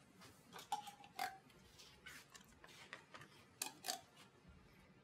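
Metal spoon scraping and clinking against a tin can as chopped tomatoes are scooped out: a few light clinks, some with a brief ring.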